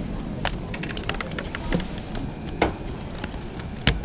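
Scattered light taps and clicks with a few sharper knocks, the loudest a heavy thump near the end, as a freshly caught small jack is handled and lands on the wooden pier deck.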